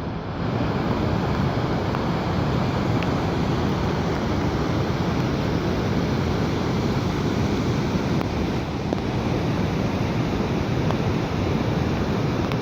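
Steady, unbroken rushing of water in heavy rain.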